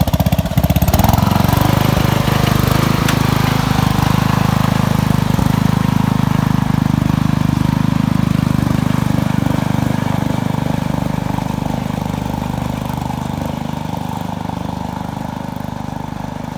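Engine of a 20-year-old MTD lawn tractor, converted to a half-track, idling with a rapid even thump, then revving up about a second in and running steadily as the tractor drives off, growing gradually fainter as it moves away.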